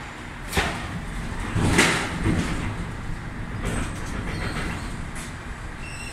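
Scania V8 560 truck's V8 diesel engine running low and steady as the tractor unit pulls a container trailer slowly forward. Several short hissing bursts break through, the loudest about two seconds in.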